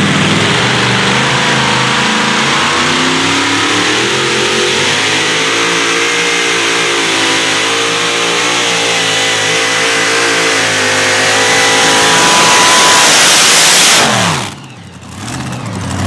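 Competition pulling tractor's engine held at high revs under full throttle, growing louder toward the end. About fourteen seconds in, the throttle is cut and the revs fall away sharply.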